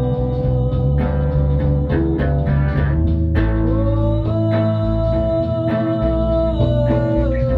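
A live band playing a rock song: bass and drums under guitar, with long held notes that slide between pitches. It is recorded from inside a pocket.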